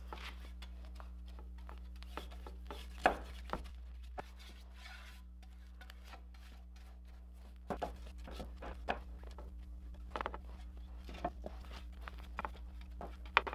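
Bristle brush spreading epoxy fill coat over a wooden paddle blade: soft, irregular brush strokes and light taps, with a sharper tap about three seconds in and another near the end, over a steady low hum.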